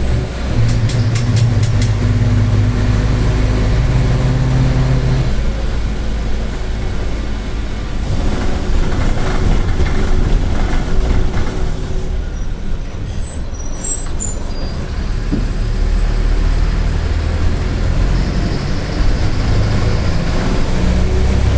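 Mercedes-Benz OF-1722M bus running in service, its engine and drivetrain droning steadily, with a growling differential. The drone changes pitch about five seconds in, and a few brief high squeaks come a little past halfway.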